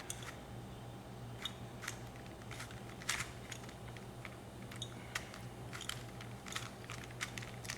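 Plastic Rubik's Cube layers being turned by hand: an irregular scatter of light clicks, over a steady low hum.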